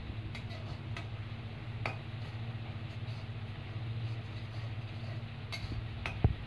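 Onion-tomato masala frying in an iron kadhai on an induction cooktop while a spatula stirs it: a steady low hum under a sizzling hiss, with a few light scrapes and taps of the spatula against the pan and a sharper knock near the end.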